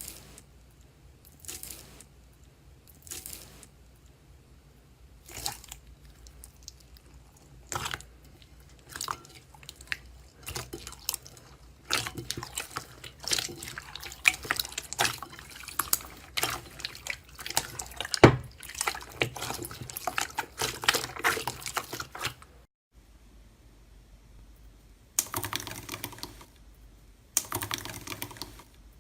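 Slime being squished and worked, giving wet, sticky clicks and pops. The clicks come one at a time at first, then crackle thickly for about ten seconds, stop briefly, and start again near the end.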